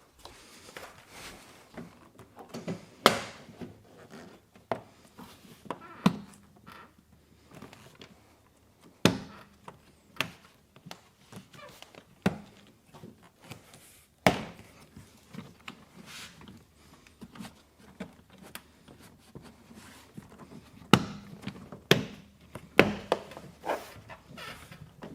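Scattered knocks, clicks and thunks of hands and tools working on a car door, a dozen or so sharp hits at irregular intervals with quiet between them.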